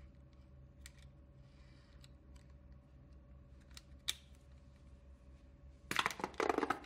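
Small plastic clicks from a Mil-Tec mini dynamo camping lantern as its crank handle is worked, with one sharp click about four seconds in. Near the end, about a second of loud scraping and crinkling as the collapsible telescopic body is pulled open.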